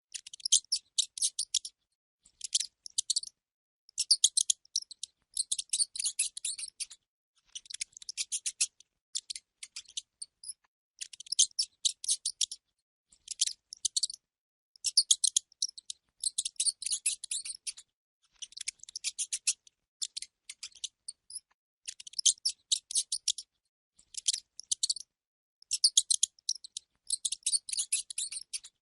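Rat squeaking: rapid trains of high-pitched squeaks in bursts of about a second, separated by short pauses, over and over.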